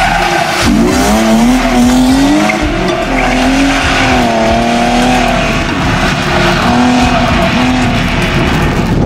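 BMW E36 rally car's engine revving under hard driving. The pitch drops sharply about half a second in, then climbs, and keeps rising and falling with the throttle.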